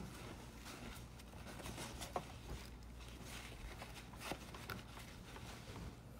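Faint rustling of a paper towel rubbed over a printer's paper-end sensor wire, with a few light clicks from the handling, over a low steady hum.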